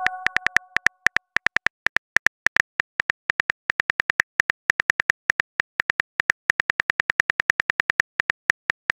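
Smartphone keyboard click sound effect, a quick, slightly uneven run of clicks at about five a second, as a text message is typed out. A chiming message tone fades out in the first second.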